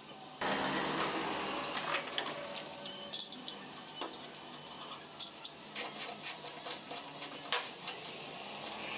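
Hand disassembly work on a car body: about half a second in, a sudden scraping, rustling stretch lasting a few seconds, then a run of sharp metallic clicks and clinks from tools and loose metal parts.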